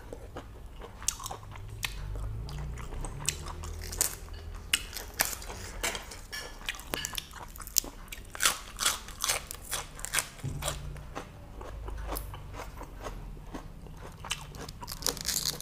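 Close-miked eating: chewing mouthfuls of boiled pork intestines and fresh lettuce leaves, with a dense run of short, sharp crunches and bites.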